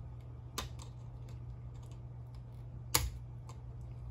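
Small clicks of ball link pliers pressing the tail push rod's plastic ball link onto the ball of an RC helicopter's tail pitch slider, with one sharp snap about three seconds in as the link goes on. A low steady hum sits underneath.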